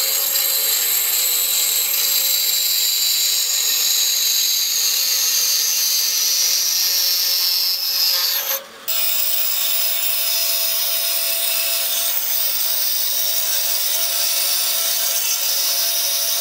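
Vertical band saw cutting through aluminum tubing as the pipe is rolled against the blade: a steady, high-pitched rasping cut with a whine that slowly falls in pitch. The sound drops out briefly about halfway through, then the cutting carries on.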